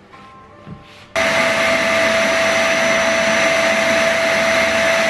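Canister vacuum cleaner switched on about a second in, then running steadily with a constant whine, drawing the air out of a vacuum storage bag of clothes.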